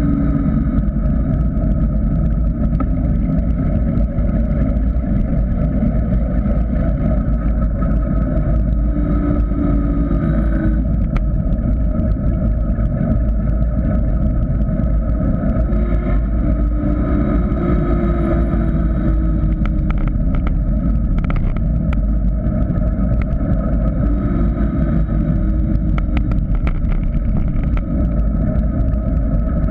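Steady loud wind rush and rumble on a bike-mounted GoPro Hero 3's microphone during a fast downhill run on tarmac, with scattered clicks and rattles from the bike in the second half.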